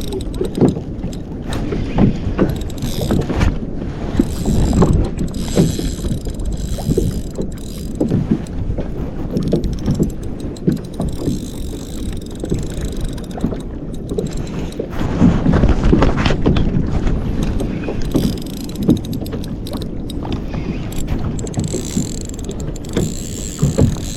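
Fishing reel and rod being worked against a large fish from a plastic kayak, with mechanical clicks, knocks and scrapes over low water and wind noise on the microphone.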